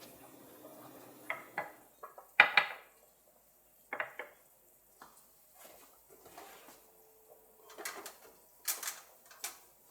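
Dishes and utensils clinking and knocking in a kitchen: a scattering of separate clacks, the loudest about two and a half seconds in.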